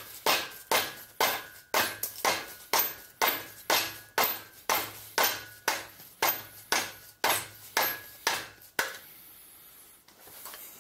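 Repeated hammer blows on an oil seal puller hooked into a stuck oil seal in a Kohler K301 engine's crankcase, about two sharp knocks a second. The strikes stop about nine seconds in. The hammer is needed because the seal is stuck more than usual.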